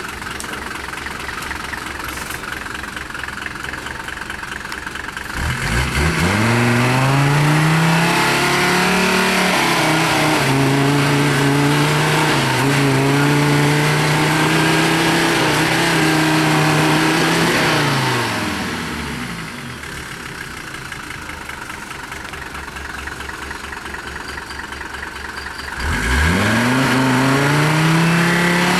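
GAZ-69 off-road special's engine idling, then revving up about six seconds in and held at high revs for roughly ten seconds while the 4x4 pushes through soft dirt. It drops back to idle, then revs up again near the end.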